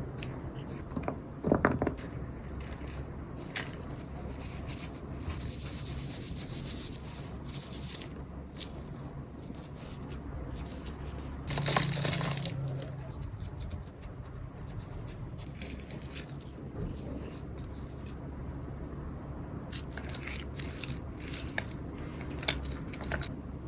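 Baking prep sounds: scraping and rubbing, with scattered light clicks and knocks over a steady low hum, and a louder rustling scrape about halfway through.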